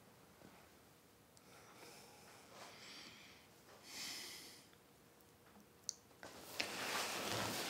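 A sleeping man breathing heavily through his nose and mouth, three soft, airy, snore-like breaths about a second apart. A louder rushing noise starts a little after six seconds in and runs on.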